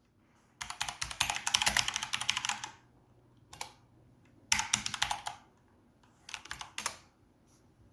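Typing on a computer keyboard in bursts: a quick run of keystrokes for about two seconds, a shorter run a couple of seconds later, then a few last keys near the end.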